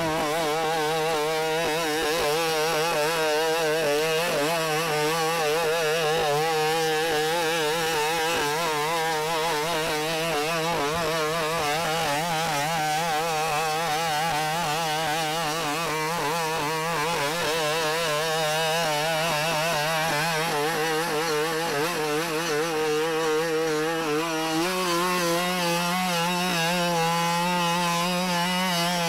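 Boston Dynamics BigDog quadruped robot's two-stroke engine running continuously, its pitch wavering as the hydraulically driven legs take each step. The tone grows stronger about 25 seconds in.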